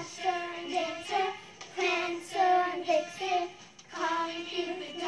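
A child singing a tune in short phrases of held notes.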